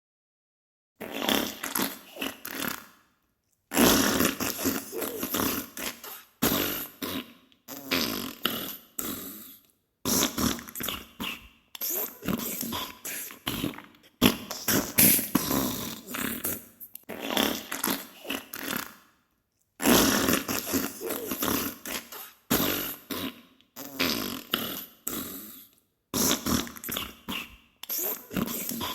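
Diarrhea sound effect: a series of fart sounds in bursts of one to three seconds, separated by short silent gaps.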